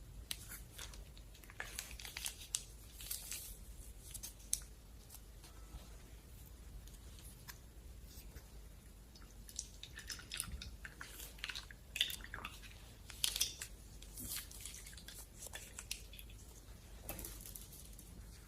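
Slime being handled, giving irregular crackly clicks and small pops, busiest around two to three seconds in, again from about ten to fourteen seconds, and briefly near the end.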